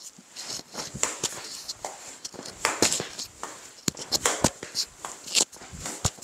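Practice swings with a golf rope trainer: irregular swishes, rustles and scuffs of clothing and shoes on a turf hitting mat, with many short clicks.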